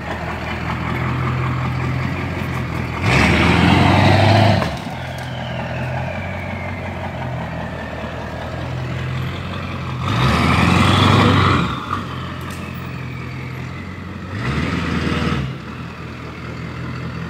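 Truck engine idling steadily, revved up three times for a second or two each. After the first two revs a high whine falls away in pitch.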